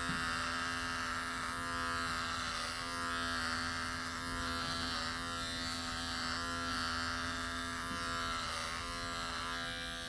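Electric horse clippers running with a steady buzzing hum that swells and eases a little every second or two as they are worked through a horse's coat.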